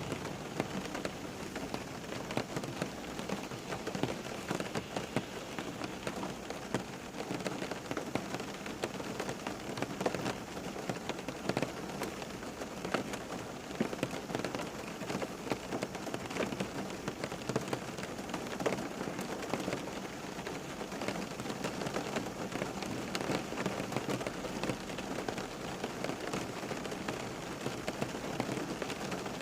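Steady rain falling on a surface, a dense even hiss with many small drop patters and ticks throughout.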